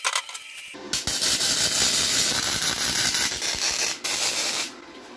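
Forney Easy Weld 140 MP welder's arc sizzling steadily as a bead is laid across the crack in a cast-iron exhaust manifold. It starts about a second in, breaks briefly near four seconds, and stops shortly before the end.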